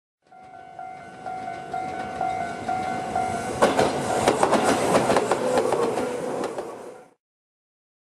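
Level-crossing alarm ringing in a pulsing electronic tone, about two rings a second, then a Tobu 8000-series electric train passing close by from about three and a half seconds in, its wheels clattering over the rail joints. The sound cuts off suddenly about seven seconds in.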